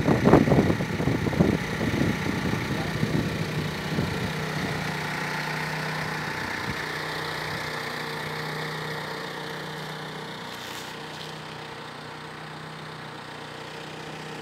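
A steady engine hum that slowly grows fainter, with a few brief voices near the start.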